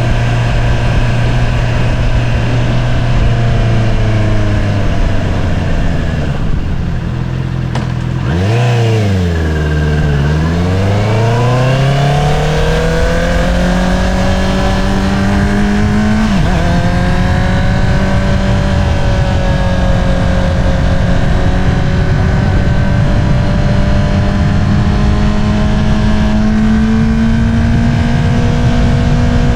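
Honda CBR650R inline-four running through an Akrapovič single-outlet exhaust under way. The engine note holds steady, then eases off as the throttle closes, with a quick rev blip and dip about nine seconds in. It then climbs in revs, drops suddenly at an upshift about halfway through, and settles into a steady, slowly rising cruise.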